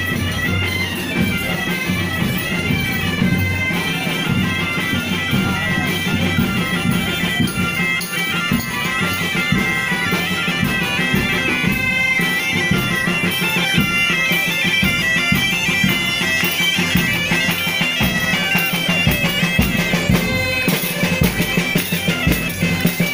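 Bagpipes playing a lively folk tune, the chanter's quick melody over a steady drone.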